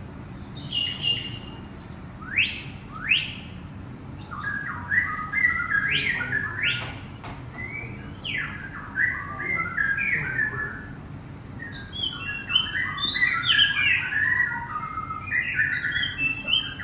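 Several birds calling and chirping: sharp whistled sweeps, some rising and some falling, repeat every second or so. From about four seconds in they are joined by a busy chatter of short notes, which grows denser near the end.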